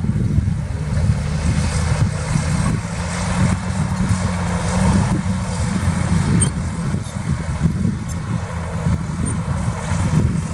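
Heavy earthmoving machinery's diesel engine running steadily, a low, even rumble.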